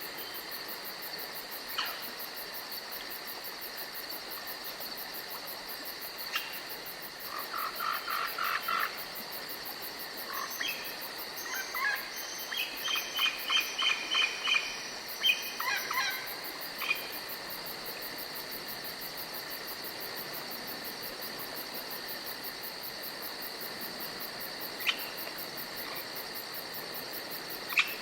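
Night-time chorus of crickets or other insects chirping steadily and high-pitched, joined for about ten seconds near the middle by frogs giving bursts of rapid pulsed croaks, with a few single sharp chirps.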